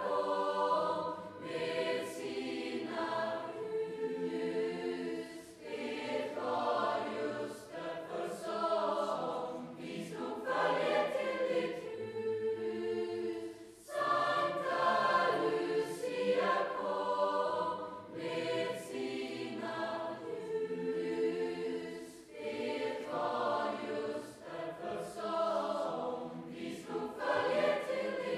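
Large school choir singing, in long phrases of about eight seconds with brief breaks for breath between them.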